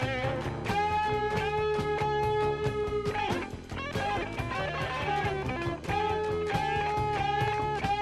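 Heavy psychedelic blues-rock recording: an electric guitar holds long sustained notes, with a sliding bend about three seconds in, over a steady beat.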